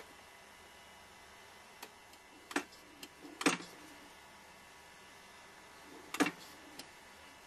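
A few sharp, irregular mechanical clicks from a rotary microtome being worked as the paraffin block in its holder moves past the knife. The loudest clicks come about three and a half and six seconds in.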